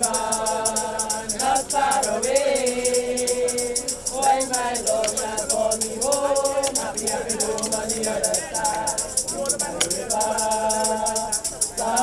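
A group of voices singing a gospel chorus, with hand percussion such as a shaker keeping a fast, steady beat.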